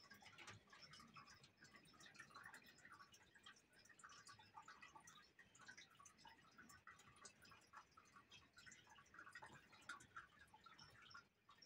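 Near silence with faint, scattered soft ticks and scrapes of painting on paper with water-based colour.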